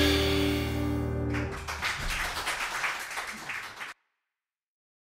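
Jazz piano trio's final chord ringing out on piano and upright bass with cymbal wash, fading over about a second and a half. A light, irregular patter of clicks follows, and then the sound cuts off abruptly about four seconds in.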